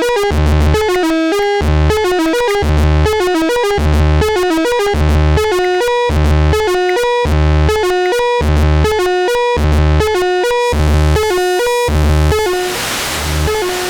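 Behringer Crave analog monophonic synthesizer playing a fast step-sequenced arpeggio riff, its notes rapid and bright, over a steady low kick about once a second. Near the end a hissing noise wash swells in under the notes.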